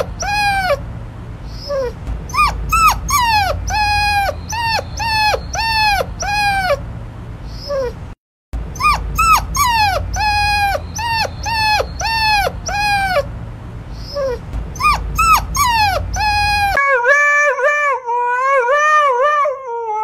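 Husky puppy giving a long run of short, high yelping whimpers, each falling in pitch, about two a second, with a brief gap near the middle. Near the end an adult husky howls, its pitch wavering up and down.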